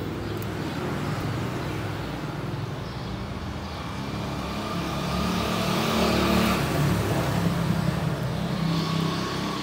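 A motor vehicle engine running, getting louder to a peak about six seconds in and then easing off.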